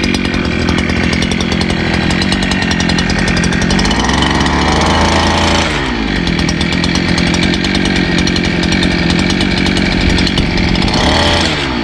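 Brush cutter engine running fast with the nylon trimmer head spinning, its speed dipping and picking up again about six seconds in and near the end. It is running with vibration and an off noise because the head is not joined properly, which the demonstrator warns will damage the shaft.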